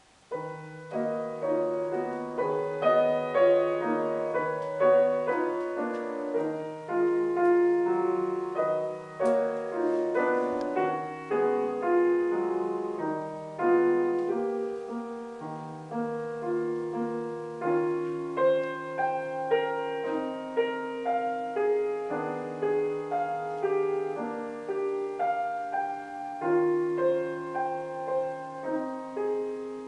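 C. Bechstein grand piano playing a contrapuntal piece, starting about half a second in: several voices move over a low bass note that is held and re-struck throughout.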